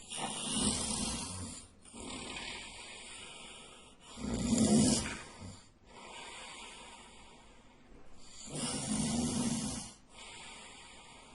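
A sleeping man snoring loudly, in a slow rhythm. Three loud snores come about four seconds apart, each followed by a softer, longer breath.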